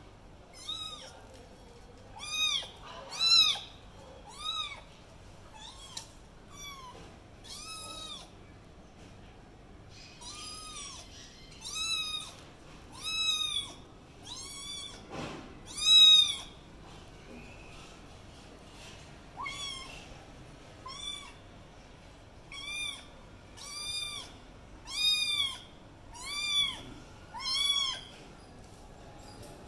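Kitten meows: a long run of short, high-pitched mews, each rising then falling in pitch, coming about one every second or two with a few pauses.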